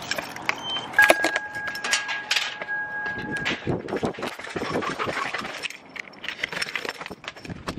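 Keys jangling and clicking as a key goes into a doorknob lock and is worked. About a second in, a steady beep sounds for about two and a half seconds.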